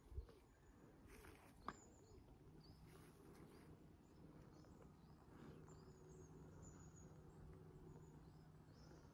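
Faint birdsong of small chirps, almost silent overall, with a low steady hum coming in a couple of seconds in and a single click early on.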